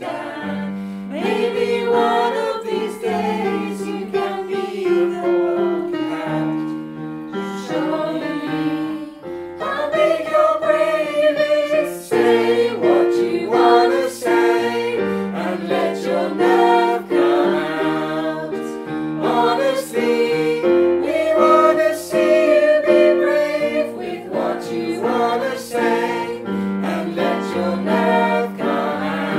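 A choir of voices singing a song with piano accompaniment.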